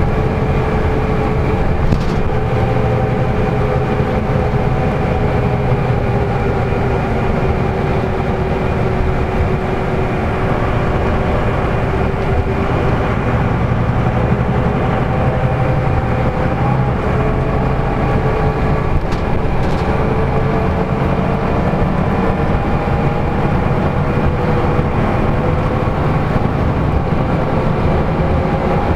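Cabin noise of a LiAZ-5250 diesel intercity bus cruising on a highway: a steady engine and drivetrain drone with a whine that drifts slowly up and down in pitch, over road rumble. Two faint knocks come about 2 seconds in and near the middle.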